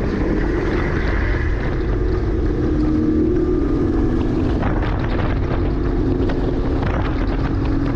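Porsche Cayman S's 3.4-litre flat-six running hard on track, with wind and road noise; its note climbs over the first few seconds, then drops a little about halfway through and holds steady.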